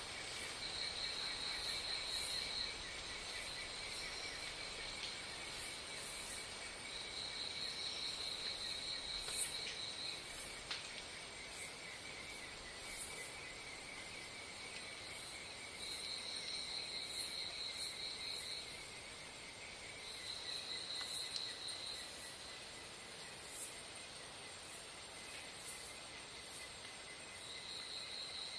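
Insects trilling: a steady high pulsing drone throughout, with a higher trill starting and stopping in stretches of one to three seconds and faint, very high chirps repeating about once a second.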